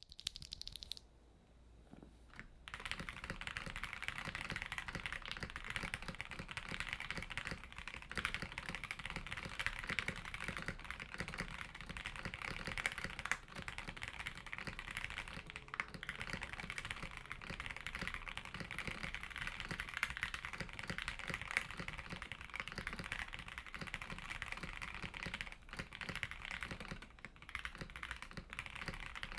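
Continuous typing on a KBD8x MKII mechanical keyboard with stock NovelKeys Silk Emerald linear switches in a polycarbonate plate, topped with PBT keycaps. It is a steady run of key presses with a little spring crunch, and the typing starts about two and a half seconds in.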